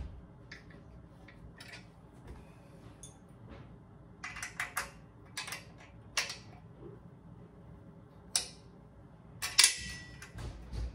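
Metal clicks and clinks of bolts, washers and nuts being fitted by hand on a steel pull-up bar frame, coming irregularly. One louder metallic clank with a short ring comes near the end.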